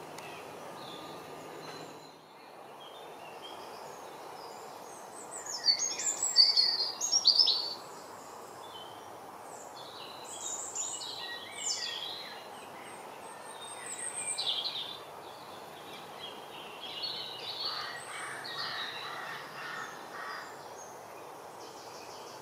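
Wild songbirds singing and calling over a steady background hiss of outdoor noise. The loudest burst of song comes about six seconds in, with further shorter phrases at intervals after it.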